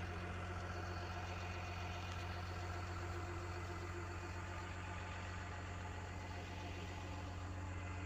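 John Deere 750J-II crawler dozer's diesel engine idling steadily, a low even hum.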